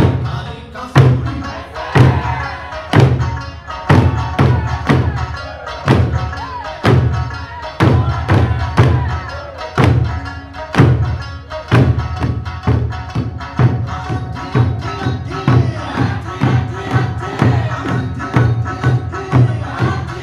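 Eisa drumming: large Okinawan barrel drums and small hand drums struck together in time with Eisa folk-song music. The strokes fall about once a second, then quicken to about two a second in the second half.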